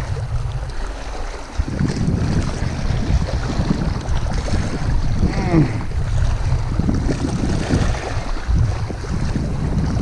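Wind blowing on the microphone, a constant low noise that rises and falls.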